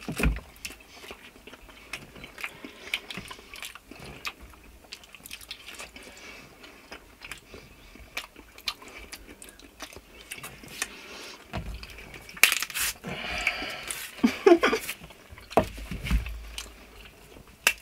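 Bananas being peeled and eaten in a hurry: peel tearing, chewing and mouth sounds, and peels dropped and handled on a table, as a string of small clicks and rustles. A few louder muffled sounds come about two thirds of the way through.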